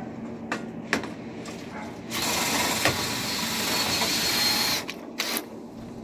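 Cordless drill spinning a rotary dryer-vent cleaning brush on a flexible rod, a steady whine with a rushing hiss; it starts about two seconds in, runs for under three seconds, stops, and gives one short burst just after. A few light clicks come before it.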